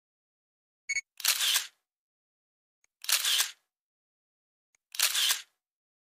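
Camera shutter sound effect, clicking three times about two seconds apart, each a short crisp snap led by a faint tick.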